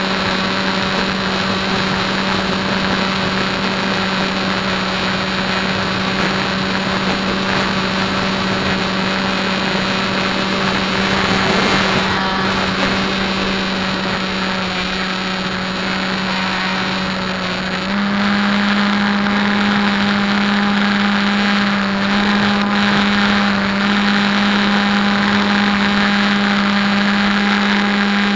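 HobbyKing Bixler's electric motor and pusher propeller running steadily in flight, picked up close by the plane's onboard camera. About two-thirds of the way through, the pitch steps up slightly and the sound gets a little louder as the motor speeds up.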